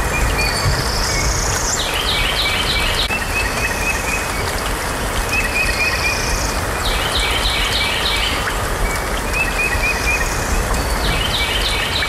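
Steady rain hiss with a bird singing over it. The bird repeats the same phrase about every five seconds: a rising sweep, a quick run of four or five chirps, then a softer trill.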